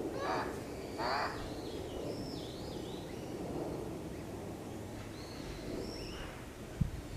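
Birds calling outdoors: two harsh, caw-like calls near the start, then repeated short high chirps over a low background rumble. A single dull thump comes near the end.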